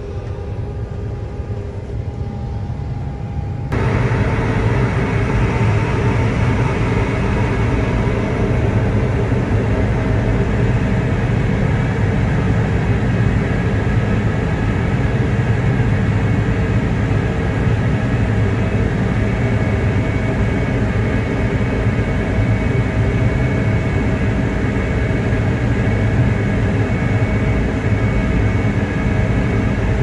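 John Deere CP690 cotton picker running while picking, heard from inside its cab: a steady engine and machinery drone with a strong low hum. It gets suddenly louder about four seconds in and then holds steady.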